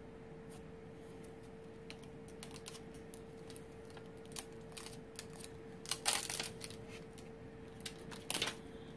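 Scattered light clicks and rattles of stamp sets being sorted through by hand while a sentiment stamp is sought, with a busier cluster about six seconds in and another near the end, over a faint steady hum.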